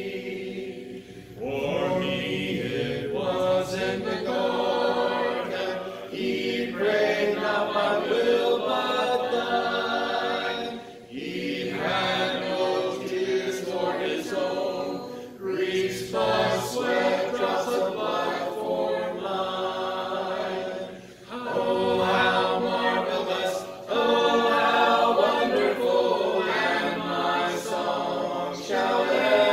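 Voices singing a hymn together a cappella, with no instruments, in phrases with brief breaks between them.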